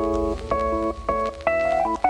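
Background music: keyboard or piano-like notes struck in a steady phrase over a low bass.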